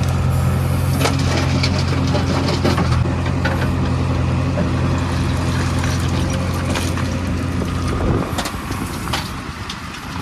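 Backhoe loader's diesel engine running hard under load, with scattered knocks and crunching of soil and stones. The engine note drops away about eight seconds in.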